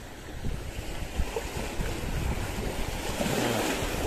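Small sea waves washing over shoreline rocks, with wind buffeting the microphone. The wind and water noise grows louder about half a second in.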